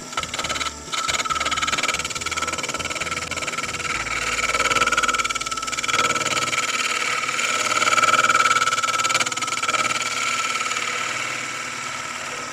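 Wood lathe running with a steady whine while a turning tool is held lightly against the end of the spinning wooden collet blank, scraping the end square.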